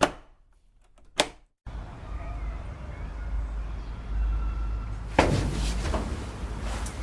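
A sharp knock, like a door shutting, then a second sharp click about a second later. Then a steady low rumble of background noise comes in, with another louder hit about five seconds in.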